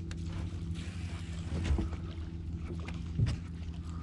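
A boat's motor running steadily at low speed, a low even hum, with a short knock about three seconds in.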